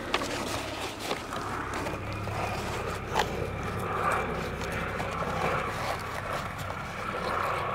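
A helicopter flying over, heard as a steady low drone that swells a couple of seconds in. A few light knocks and scrapes sound close by.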